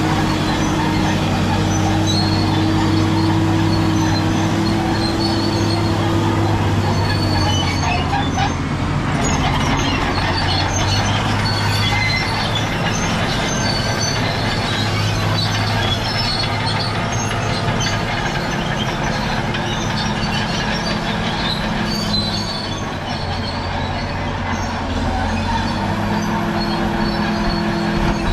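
Caterpillar D7G crawler bulldozer working: its diesel engine runs steadily while the steel tracks squeal and clank. The engine note eases off from about seven seconds in and comes back strongly near the end.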